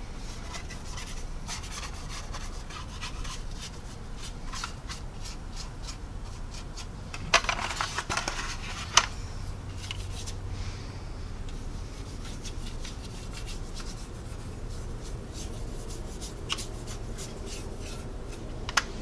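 Paintbrush dabbing and sweeping a clay-based wash over a plastic scale model's surface: soft, scratchy strokes, with a louder stretch about seven seconds in that ends in a sharp click.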